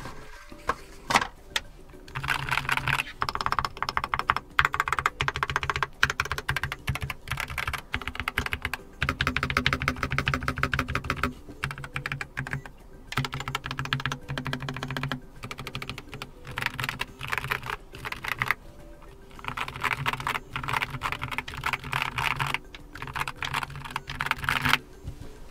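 Fast typing on a Keychron K4 HE keyboard with magnetic Nubia linear switches in an aluminium case, in several bursts of rapid keystrokes with short pauses between them.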